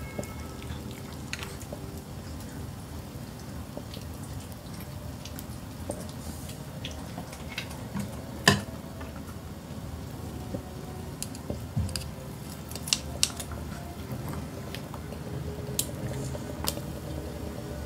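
Pomeranian puppy chewing meat, with wet smacking and many small clicks of its mouth and teeth. One sharp, louder clack about halfway through.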